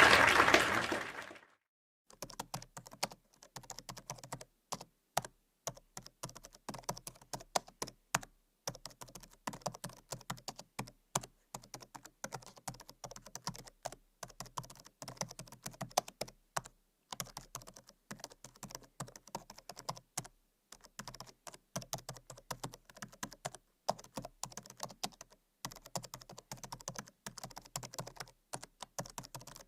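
Typing on a computer keyboard: quick, irregular key clicks with brief pauses now and then. In the first second and a half, applause fades out before the typing starts.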